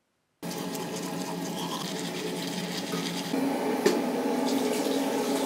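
Water running steadily with a hum; it starts abruptly about half a second in and grows a little louder about three seconds in.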